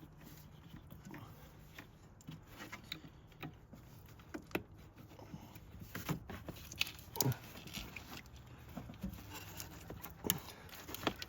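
Scattered light clicks and knocks of ignition coil packs being handled, seated and their connectors clipped on, over a faint steady low hum.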